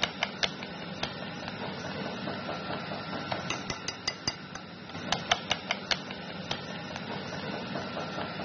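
Metal balloon whisk beating flour into a thick butter, sugar and egg-white batter in a ceramic bowl. A steady wet scraping is broken by quick runs of sharp clinks as the wires strike the bowl, near the start, around four seconds in and again around five to six seconds.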